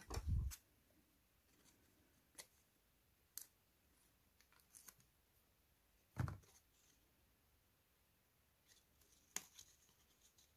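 Faint, sparse clicks and taps of paper and card pieces being handled and glued, with a dull thump at the start and another about six seconds in.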